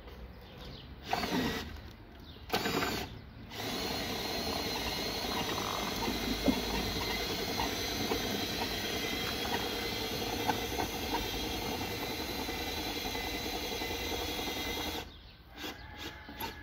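Hand-cranked roll-up awning being wound in: the crank's gear mechanism turning with small clicks. After two short starts it runs steadily, then stops suddenly near the end.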